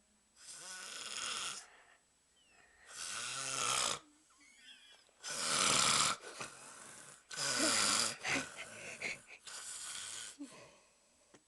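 A man snoring loudly, with pig-like rasping snores. Five snores come about two seconds apart.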